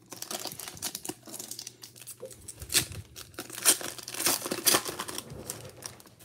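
Foil wrapper of a football trading card pack being torn open and crinkled by hand: a dense run of crackles, with the sharpest tears in the middle.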